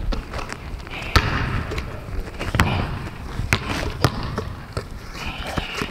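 Basketball bouncing on a hardwood gym floor: a few sharp, separate bounces, the clearest about a second in and twice more near the four-second mark, echoing in the large gym.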